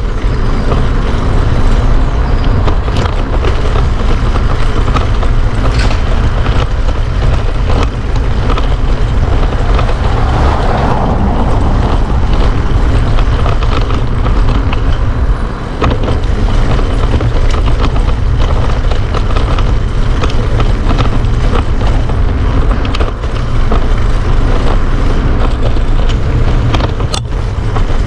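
Steady, loud rumbling noise from riding a bicycle along a busy city street: wind buffeting the camera's microphone, with road and traffic noise underneath.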